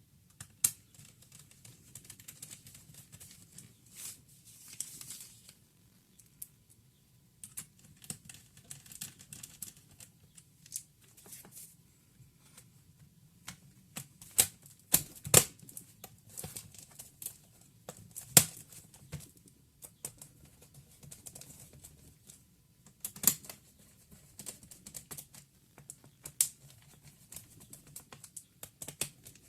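Lenovo G570 laptop being handled: irregular sharp plastic clicks and taps, some in quick clusters, with brief scraping between them.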